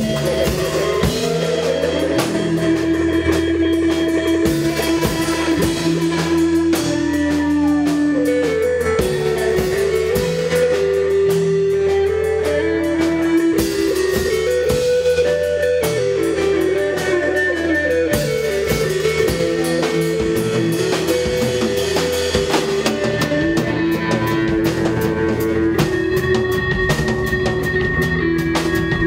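Live psychedelic rock band playing an instrumental passage: drums and a sustained bass under a stepping lead melody, with a sliding swoop in pitch about seven seconds in. The lead is likely an electric guitar.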